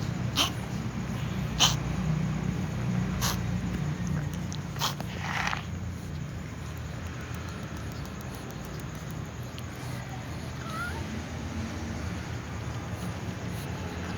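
A cat coughing in a series of short, sharp bursts about a second and a half apart during the first six seconds, then a faint short meow about eleven seconds in, over a steady low background hum.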